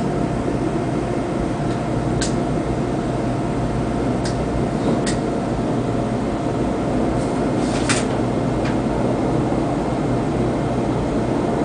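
NH90 helicopter's rotor and twin turbine engines running steadily, a dense rumbling noise with a faint steady whine, broken by a few short sharp clicks.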